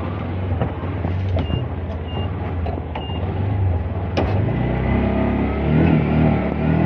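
Auto-rickshaw engine running steadily at a low pitch, with three short high beeps about a second and a half in and a sharp click around four seconds in.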